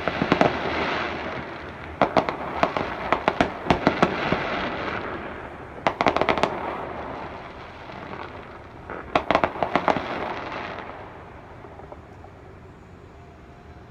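Fireworks display: rapid volleys of sharp bangs and crackling in three bursts, the last about nine seconds in, then dying away to a faint steady background.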